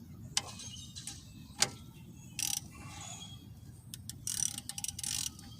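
Socket ratchet wrench working a suspension bolt: a couple of sharp single clicks, then short runs of rapid ratcheting about halfway through and again near the end.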